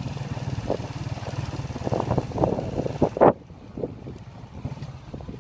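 Motorcycle engine running steadily under way, with wind noise on the microphone. About three seconds in there is a loud short bump, after which the wind hiss drops away.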